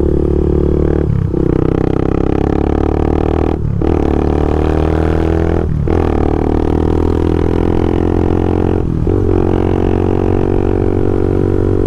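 Honda Twister single-cylinder motorcycle engine running loud through a sport exhaust at highway speed, a steady droning note broken by four brief dips in the throttle.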